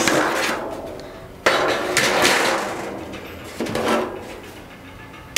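Full-size disposable aluminum foil water pans being handled and set into wire chafing racks, the thin foil rattling and flexing. A sudden loud clatter starts about a second and a half in and fades over the next couple of seconds.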